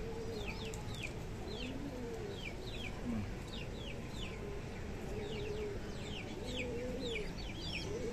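Domestic pigeons cooing in a loft: low, rising-and-falling coos every second or so, over a steady run of short, high, thin squeaks that sweep downward, often in pairs, as a squab begs while being fed.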